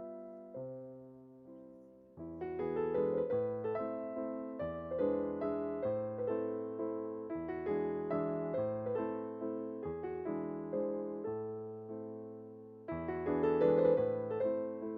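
Background piano music: soft, sparse notes at first, then a gentle flowing melody over held bass notes.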